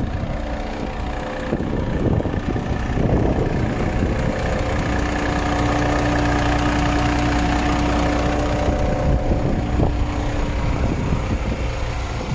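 The MAN TGX 26.560 truck's straight-six diesel idling steadily. A steady hum sets in about five seconds in and stops near the end.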